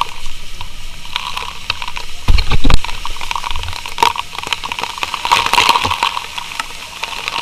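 Firehose nozzle spraying water, with the spray splashing onto a wet helmet camera as a crackling, pattering hiss. A loud low buffeting thump comes a little over two seconds in.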